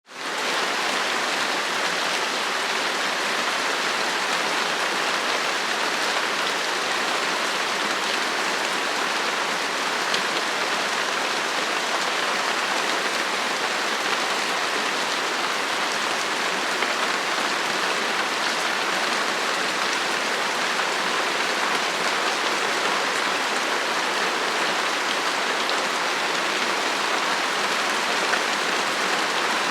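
Light rain falling steadily, an even hiss of many small drops, fading in at the very start.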